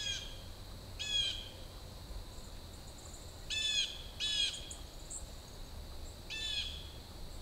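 A bird giving short, harsh calls: five in all, one at the start, one about a second in, a quick pair around the middle, and one more near the end.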